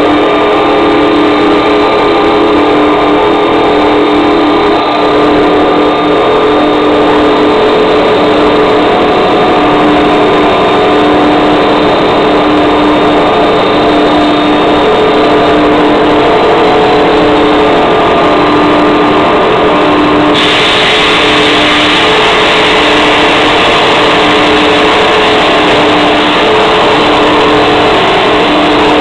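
Automatic hollow blow molding machine running: a loud, steady mechanical hum with a strong steady tone. About two-thirds of the way through, a higher hiss comes in and stays.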